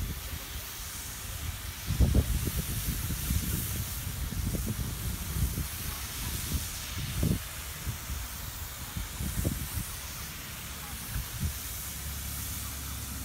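Wind buffeting the microphone in uneven low gusts, loudest about two seconds in, over a steady high hiss.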